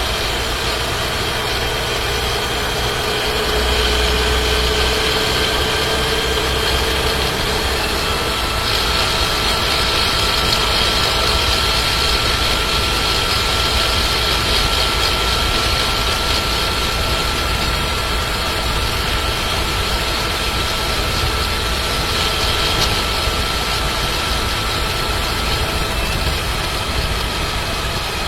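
Cabin noise of a Skoda Scala 1.5 TSI cruising at constant throttle around 75–80 km/h, with a rattle from its seven-speed DQ200 dry-clutch DSG transmission that the owner considers a fault in a new car. The engine note rises slightly over the first several seconds, then holds steady.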